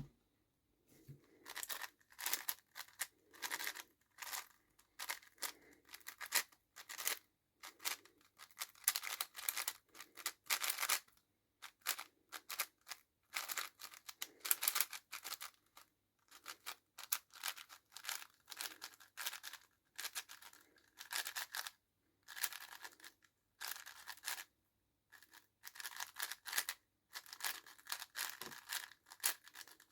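A plastic 5x5 speedcube being turned fast during a solve: runs of rapid clicking layer turns in bursts of about a second, broken by short pauses.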